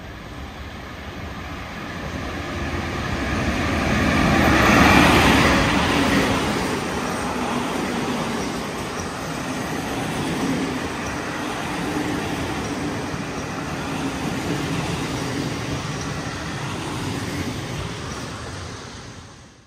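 Diesel train passing. Its noise builds to a peak about five seconds in, then settles into a steady rumble of wheels and running gear that fades out near the end.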